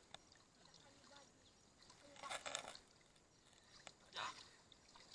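Faint water splashing and trickling in shallow floodwater, with one short splash a little over two seconds in and another about four seconds in.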